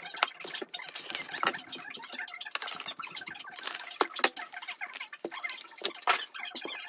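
Packaging being handled during an unboxing: a dense, irregular run of crinkles, scratches and small clicks.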